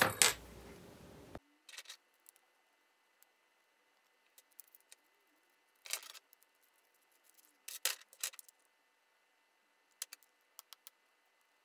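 Small parts being handled: scattered light clicks and clinks of plastic pieces, metal bolts and ball-joint studs knocking together and set down on a wooden bench. A clatter right at the start, then single taps and short clusters a second or more apart, the clearest about six and eight seconds in.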